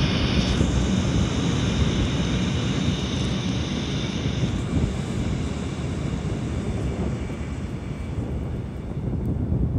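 Electric multiple-unit commuter train running across a concrete railway bridge: a steady rumble with a higher hiss that drops away about four and a half seconds in, the whole sound easing off gradually as the train moves away.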